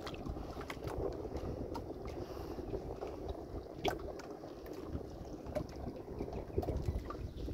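Choppy floodwater lapping and sloshing against a small boat in the wind, a steady low wash with a few faint knocks.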